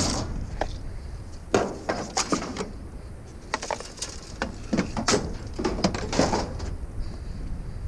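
Scattered clusters of knocks and rattles as curbside scrap is handled and loaded, over a low steady rumble.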